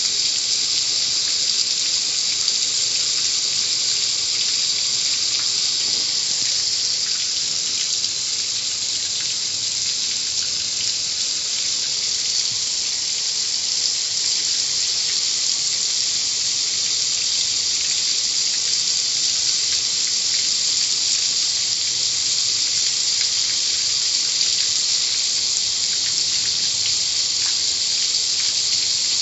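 Car wash water spray: a steady, even hiss of water jets that neither starts nor stops.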